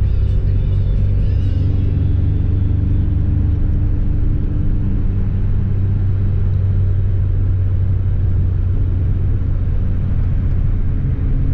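Car being driven at a steady pace, heard from inside the cabin: a continuous engine and road rumble with a steady low hum.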